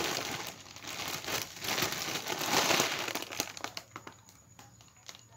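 Crinkling of a large foil party balloon pressed down by hand to squeeze its air out through a thin pipe. The crinkling is loud at first and dies away about two-thirds of the way through, leaving a few faint ticks.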